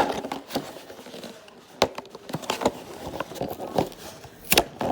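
Scattered clicks, taps and light scraping from handling a diecast toy monster truck and its plastic and cardboard packaging.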